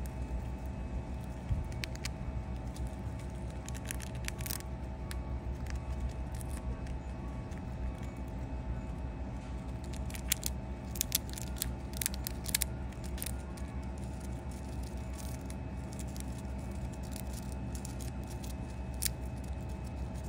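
Chipmunk gnawing a peanut shell, with short sharp cracks and crunches, most of them about ten to thirteen seconds in. Under it runs a steady low mechanical hum, the loudest sound.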